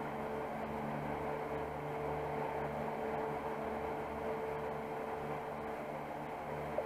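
Electric shop fans running: a steady whirring hum with a faint tone, and one small click near the end.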